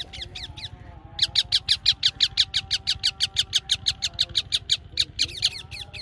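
Yellow ringneck parakeets calling in flight: a few sharp, high screeches, then about a second in a fast, even run of loud screeches, about seven a second, that breaks up near the end.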